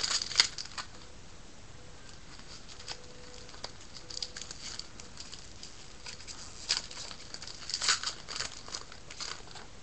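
Trading cards being handled: short, light rustles and flicks as cards are slid and flipped against one another, in a few brief clusters with pauses between.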